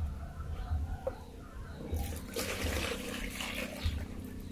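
Coconut water pouring out of a freshly opened young coconut into a plastic bowl, for about a second and a half starting about two seconds in.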